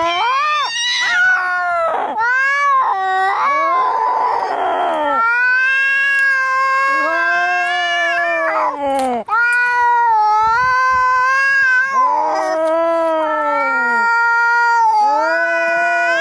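Cats fighting: long, wavering yowls one after another, broken by a short hiss about four seconds in.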